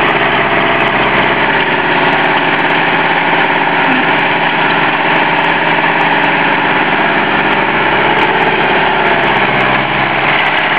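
Fiatagri 160-90 DT tractor's diesel engine running steadily under load while it pulls a power harrow through the soil.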